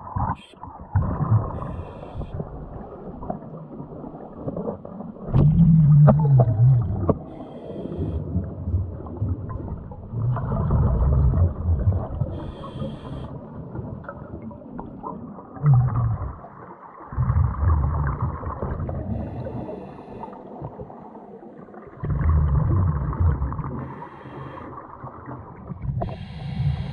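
Scuba diver breathing through a regulator underwater: loud bubbling rumbles of exhaled air every five seconds or so, with short hisses of the regulator between them.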